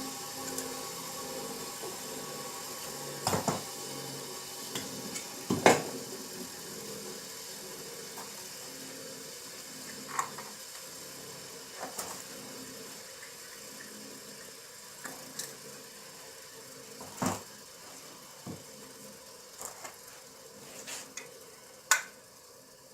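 Scattered metallic clinks and knocks of small stainless steel belt-buckle parts being handled and worked by hand, over a faint steady hiss. The sharpest knocks come about six seconds in and just before the end.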